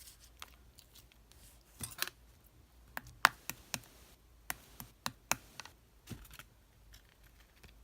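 Irregular sharp clicks and taps of small objects being handled at close range, about a dozen of them, the loudest a little over three seconds in.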